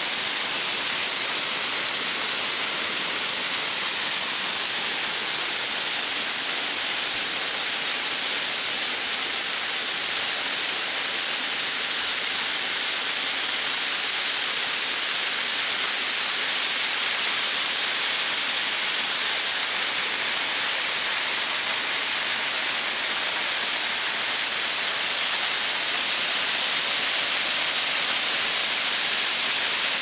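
Waterfall: water pouring over rock ledges and rushing down the creek bed, a steady loud hiss that swells a little about halfway through and again near the end.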